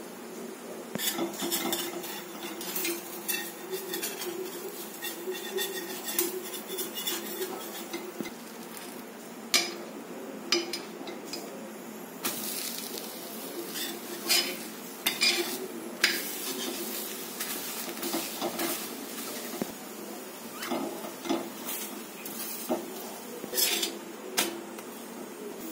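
Besan chilla frying on a flat tawa griddle with a steady sizzle, while a metal spatula scrapes and taps against the pan many times to loosen, flip and press it.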